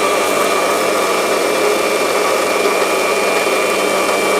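Electric mixer grinder with a stainless-steel jar running steadily, blending mango purée, strained yogurt and sugar; a steady motor noise with a constant high whine.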